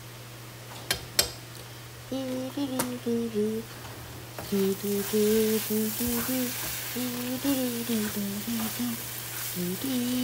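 A spoon taps twice on a frying pan about a second in. Then a ground-meat and egg sauce sizzles as it is stirred and scraped with a plastic spatula, the sizzle growing louder halfway through, while a woman hums a tune.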